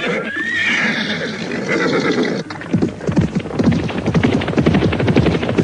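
Radio-drama sound effect of a horse whinnying, then from about two and a half seconds in, the rapid clattering hoofbeats of a group of horses setting off.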